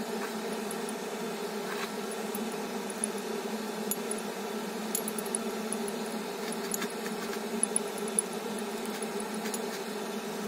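A steady mechanical hum at an even level, with a few light clicks and taps now and then.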